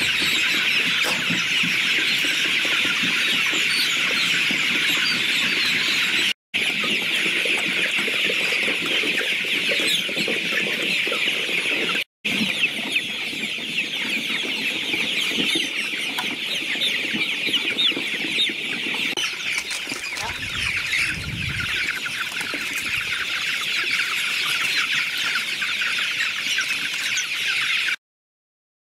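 A large flock of young chicks peeping all at once: a dense, continuous chorus of high chirps, broken by two brief gaps and cutting off abruptly near the end.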